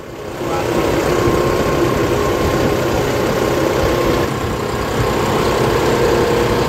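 John Deere tractor's diesel engine running steadily under way, getting louder about half a second in.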